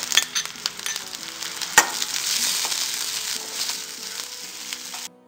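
Sliced shallots sizzling in hot coconut oil in a steel kadai, stirred with a steel ladle that clicks and scrapes against the pan, with one sharp knock about two seconds in. The sizzling cuts off abruptly just before the end, leaving soft background music.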